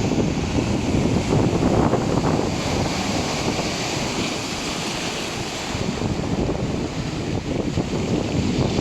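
Black Sea surf washing steadily, with wind rumbling on the microphone.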